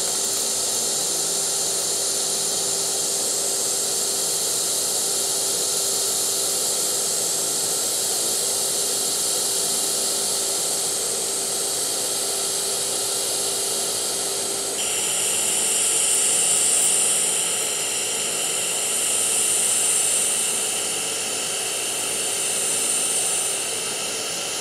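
Steady hiss and buzz of a DC TIG welding arc on stainless steel at about 75 amps, from an Everlast PowerPro 164i inverter welder, with a faint steady hum under it. About fifteen seconds in the hiss turns brighter, then swells and eases a few times.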